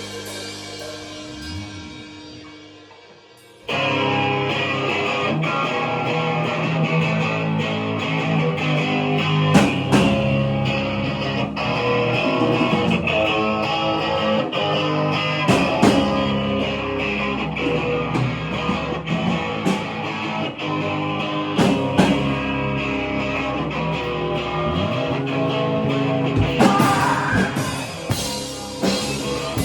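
Rock music with guitar and drums. One piece fades out over the first few seconds, then another starts abruptly about four seconds in and plays on.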